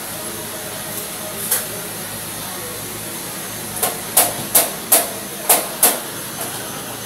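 Sharp knocks, one alone and then six in quick succession about three a second, over a steady background noise.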